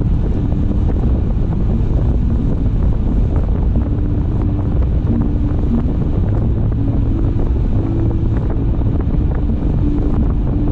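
Steady road and wind noise from a car driving along, a loud low rumble with faint engine or tyre tones coming and going.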